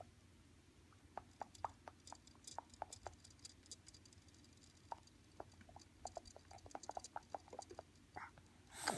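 A baby making faint, quick clicking and smacking noises with the mouth, in irregular runs of sharp little clicks. A louder babbling sound starts at the very end.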